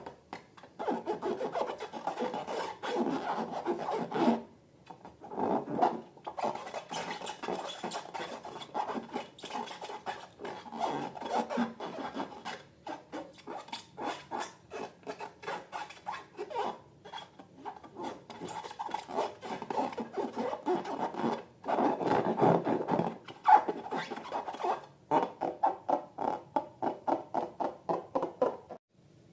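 Slime being kneaded and squished by hand: a dense, sticky crackling in stretches of a few seconds with short pauses, turning into quick, even presses about three a second near the end.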